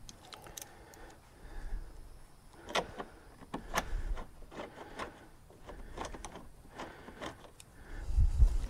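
Screwdriver clicking and scraping against the metal seat track and mounting screws of a Corvette seat as it is fastened to the floor: irregular sharp metallic clicks, with a louder low rumbling thump of handling near the end.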